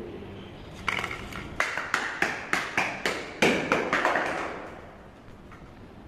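Mivi Play Bluetooth speaker tumbling down granite stairs: a rapid run of about a dozen hard knocks starting about a second in, the loudest near the middle. An echo rings on and dies away in the stairwell.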